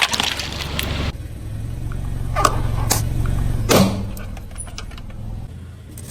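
Dense crackling crunch of toys being crushed under a car, cutting off abruptly about a second in. It is followed by a car's low steady rumble with three sharp cracks around the middle.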